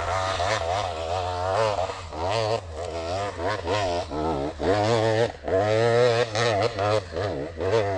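Two-stroke enduro motorcycle engine, a GasGas EC300 TBI, under constantly changing throttle on a trail. The revs waver rapidly up and down, with a brief drop in level about five and a half seconds in.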